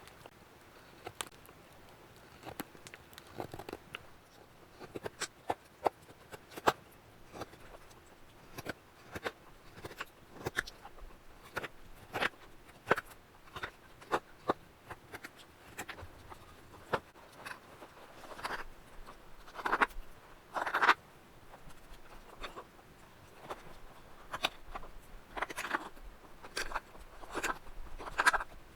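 Knife cutting into the wood of a kuksa being carved: irregular sharp clicks and short scraping strokes, with a few longer, louder scrapes past the middle.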